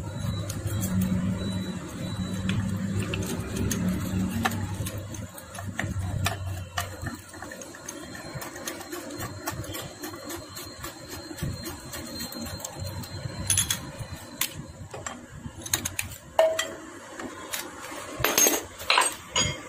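Metal hand tools clinking and clicking against the cylinder head as a spark plug is fitted into a Bajaj Pulsar 150 engine with a tubular plug spanner. A cluster of sharper metallic clinks comes near the end, and a low steady hum runs through the first several seconds.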